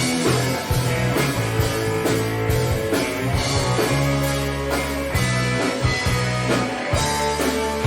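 Live rock band playing the opening of a song: electric guitar and drum kit together at a steady, loud level.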